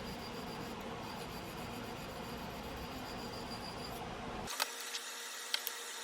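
Steady low hiss of room noise; then, after an abrupt change about four and a half seconds in, a few sharp clicks.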